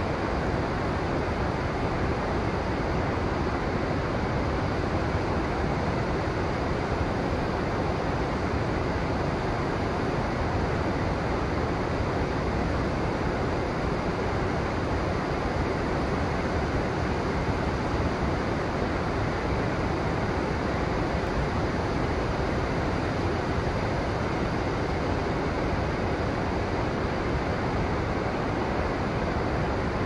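Steady rush of river water, an even hiss that does not change.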